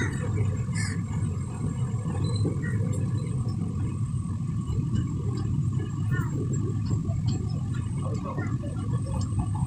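Railway station ambience: a steady low rumble with faint, scattered voices in the background.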